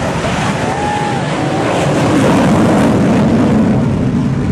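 Loud vehicle engine noise swelling to a peak a little past the middle and easing off near the end, as in a vehicle passing by.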